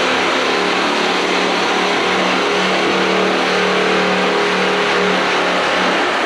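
Oil extractor's suction hose sucking oil out of a Cat D7G dozer's transmission housing: a loud, steady rushing hiss with a low hum under it.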